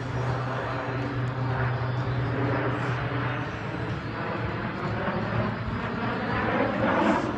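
Jet engines of a nine-ship formation of CT-114 Tutor jets passing overhead: a steady rush of jet noise with a slowly shifting, sweeping quality that swells toward the end.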